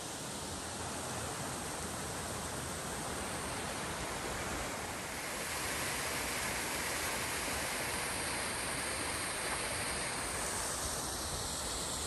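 Waterfall rushing: a steady, even roar of falling water, a little louder about halfway through.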